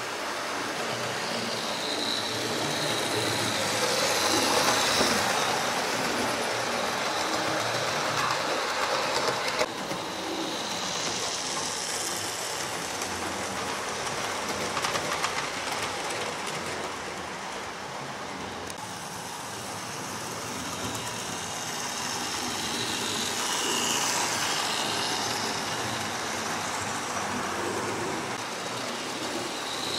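Model railway trains running around the layout: the steady whirr of their small electric motors and the wheels running on the track. It grows louder twice as trains pass close by.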